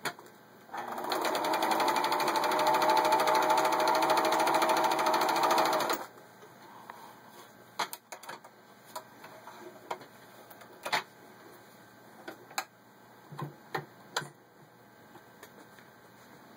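A Pfaff 297-1 embroidery sewing machine runs at speed, stitching a decorative pattern with a fast, even stitch rhythm for about five seconds, then stops. Scattered light clicks and knocks follow.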